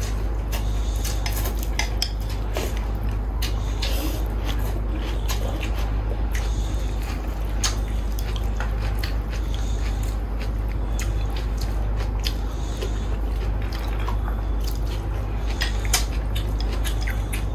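A person eating noodle soup: slurping rice noodles and broth and chewing, with scattered clicks of chopsticks and a spoon against the bowl, over a steady low hum.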